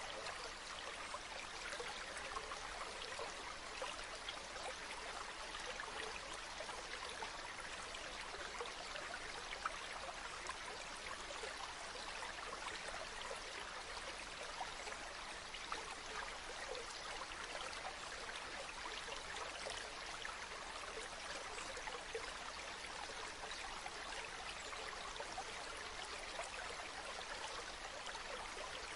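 Mountain river running over rocks: a steady babbling of water.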